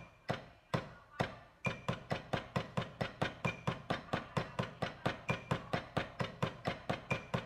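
Wooden drumstick striking a drum practice pad in steady, even strokes, about two a second at first, then doubling to about four a second after a second and a half. A short high beep recurs about every two seconds, falling on a stroke.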